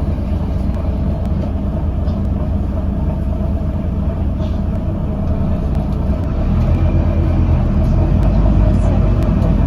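Volvo B9TL double-decker bus running, heard from on board: a steady low engine drone with a constant mid-pitched hum over it, growing louder about two-thirds of the way through as the engine pulls harder.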